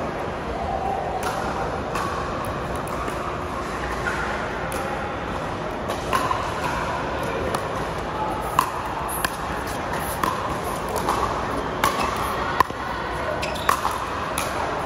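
Pickleball rally: sharp, irregular pops of the hard plastic ball off paddles and the court, about one every second, over a steady background din of the hall.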